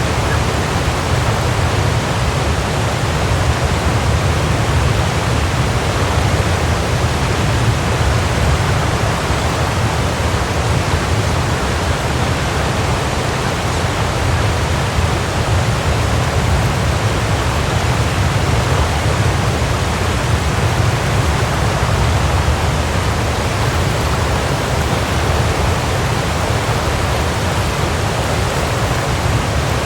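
Waterfall: water falling and splashing in a steady, unbroken rush, heaviest in the low rumble.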